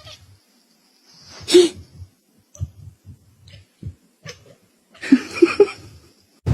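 A pet making a few short, sudden sneeze-like sounds with pauses between, then three quick higher-pitched calls about five seconds in.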